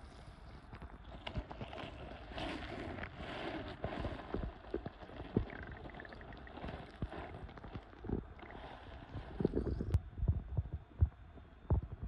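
Muffled underwater knocking and scraping over a rushing water noise, as a hand digs in a silty, stony riverbed and lifts out a mussel shell; the knocks come irregularly and grow thicker and sharper near the end.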